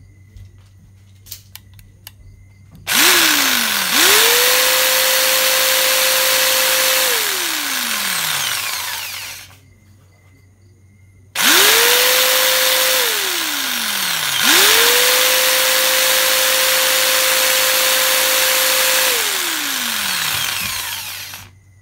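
Makita-labelled 750 W corded jigsaw running unloaded, triggered on in several runs: a brief blip about three seconds in, then three longer runs, each spinning up fast to a steady whine and winding down in falling pitch when the trigger is eased off. It is drawing power from a solar battery inverter as a load test.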